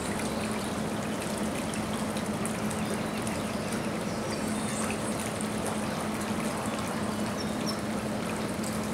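Water trickling steadily, over a constant low hum.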